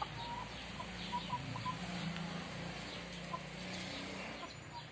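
Backyard hens clucking softly, short calls coming in a cluster over the first two seconds and then a few more, over a low steady background drone.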